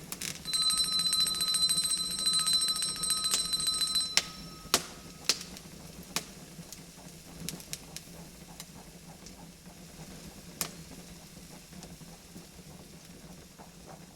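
Small bell rung very rapidly and steadily for about four seconds with a bright, high ring, stopping abruptly. After it, a wood fire crackles with scattered sharp pops over a low steady background.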